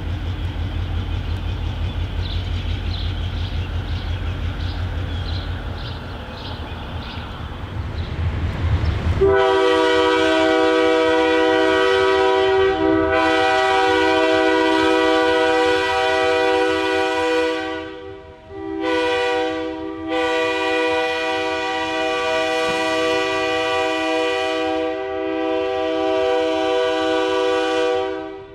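EMD GP9RM diesel locomotive's engine rumbling as it approaches, then its air horn blowing for a road crossing: long blasts, a short one, and a final long blast held for about eight seconds.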